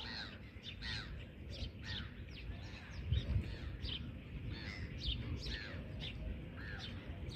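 A flock of gulls calling over the water: many short, arched, harsh calls overlapping one another, over a low rumbling noise that is strongest about three seconds in.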